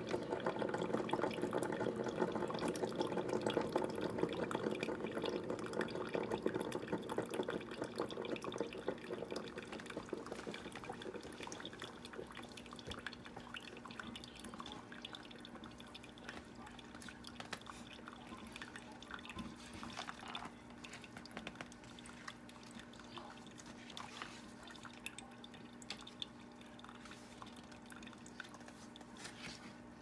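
Ninja Specialty Coffee Maker brewing over ice: coffee runs in a thin stream from the brew basket onto ice in a plastic tumbler. The splashing is loudest for the first ten seconds or so, then thins to a quieter trickle with scattered drips, over a steady low hum.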